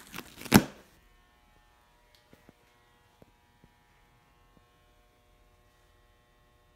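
Handling noise from a handheld camera being swung around, with one loud knock about half a second in. After that, a faint steady electrical hum of several tones with a few light clicks.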